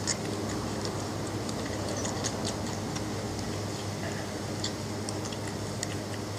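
Belgian Malinois puppies nursing on their mother: light, irregular clicks scattered throughout, over a steady low hum.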